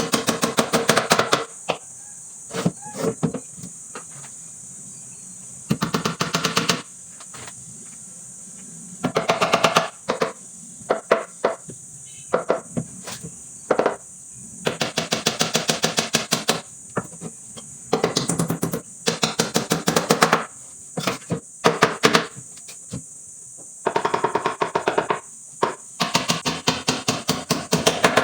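Woodworking tool work: repeated short runs of rapid knocking, about ten strikes a second, each run lasting a second or two, with pauses between.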